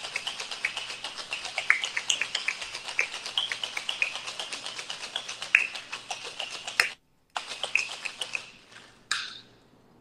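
Ice rattling rapidly inside a metal cocktail shaker as it is shaken hard, stopping about eight seconds in. A single short knock follows near the end.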